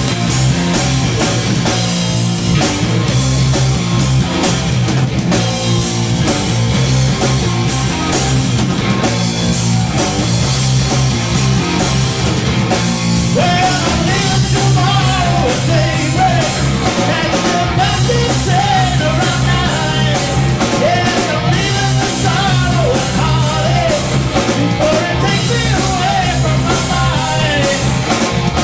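Live rock band playing electric guitar and drums, with a man's singing voice coming in about halfway through.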